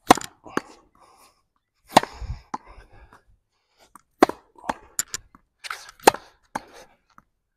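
Tennis ball being struck with a racquet in a continuous rally against a hitting wall: a string of sharp pops, roughly one every half second to second and a half, from racquet strikes, the ball rebounding off the wall and bouncing on the court.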